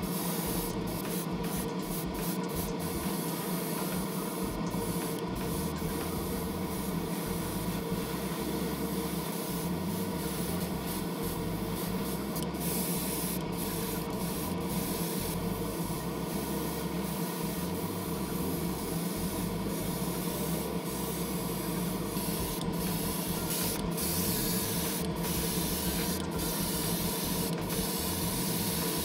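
Airbrush spraying paint: a steady hiss over a constant motor hum, the hiss briefly dipping now and then as the trigger eases off.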